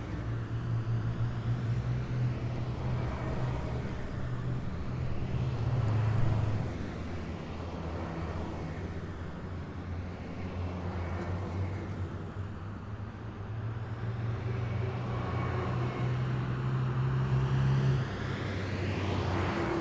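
Heavy military vehicles driving past one after another, their engines running with a low drone that swells as each vehicle passes. It is loudest about six seconds in and builds again near the end.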